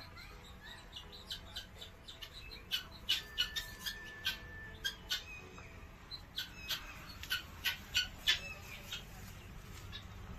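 A rapid, irregular string of short, high chirps and squawks from animals, thickest and loudest in the middle, with one held whistle-like note about three seconds in.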